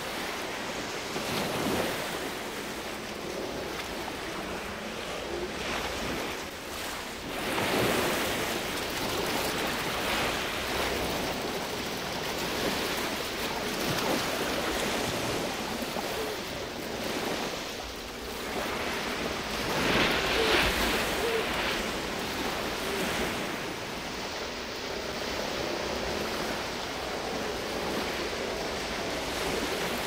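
Ocean surf breaking and washing up a pebble beach, a steady rush with louder surges as waves break, about a second and a half in, around eight seconds in and around twenty seconds in.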